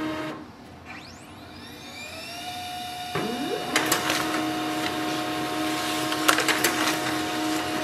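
Pantum P2507W monochrome laser printer starting a print job: a motor whine rises in pitch and settles into a steady tone. A little after three seconds a second rising sound starts, and clicking and rattling from the paper feed join in as the page is drawn through.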